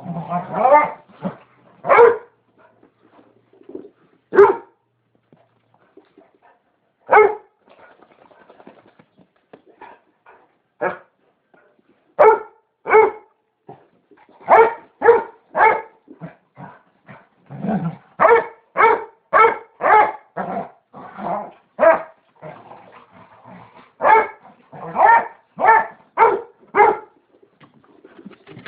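Basset hound barking in a scuffle with another dog: a few spaced single barks, then from about halfway a quick run of barks, one to two a second, with a low growl in among them.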